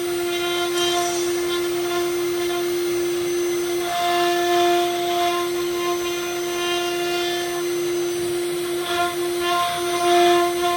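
High-speed CNC router spindle running with a steady whine, with surges of cutting noise about four seconds in and again near the end.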